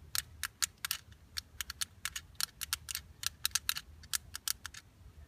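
Fidget cube click-side buttons being pressed repeatedly: a quick, irregular run of sharp, audible clicks, about five a second, that stops shortly before the end.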